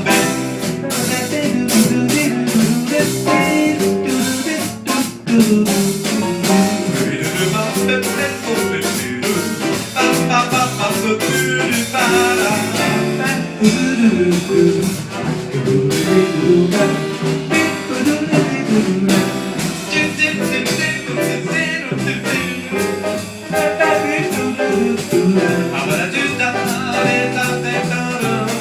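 Live small jazz band playing an instrumental chorus, with drum kit keeping time under the melody instruments.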